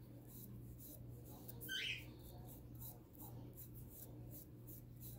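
A pet bird chirping once, briefly, about two seconds in, over a faint steady low hum.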